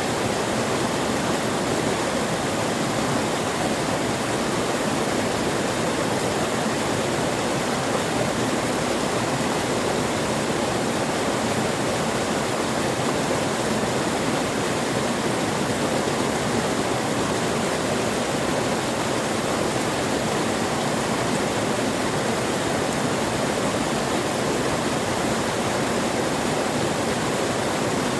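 Waterfall: water falling in a steady, unchanging rush, fullest in the low-middle range.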